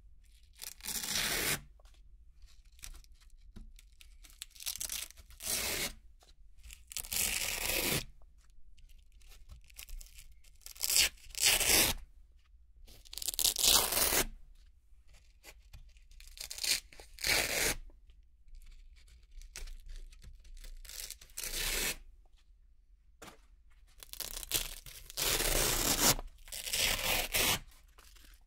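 Velcro (hook-and-loop) circles being ripped off a Velcro-covered board one at a time: a series of about fifteen separate crisp tearing rips, each a second or less, with short quiet pauses between.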